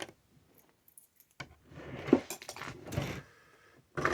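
Small hard objects being handled, clinking and knocking together in a quick run of clicks that starts about a second and a half in.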